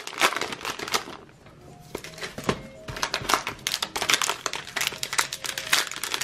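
Cellophane wrappers on trading-card packs being ripped open and crinkled in quick succession. A short lull comes just after the first second, then the crinkling picks up densely again.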